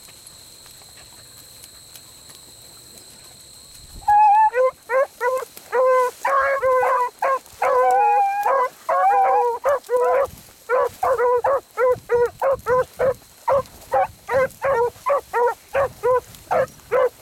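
A brace of beagles giving tongue on a rabbit track: quick, repeated short baying barks that start suddenly about four seconds in. Two voices of different pitch overlap.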